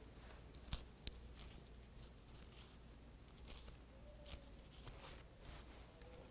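Faint rustling and soft clicks of thin Bible pages being handled and turned, over a quiet room with a low hum.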